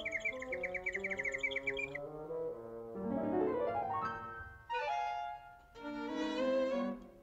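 Orchestral cartoon score. For the first two seconds a rapid high twittering chirps over held horn notes: the cartoon 'tweeting birds' effect for a stunned character. It then gives way to climbing brass and orchestral phrases with short pauses.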